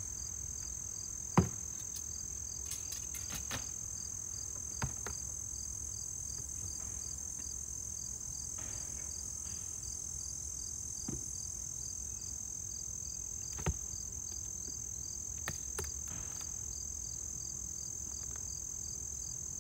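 Steady high-pitched chorus of crickets with a regular pulsing chirp. A few sharp knocks of wooden and plastic hive covers being lifted off and set down, the loudest about a second and a half in.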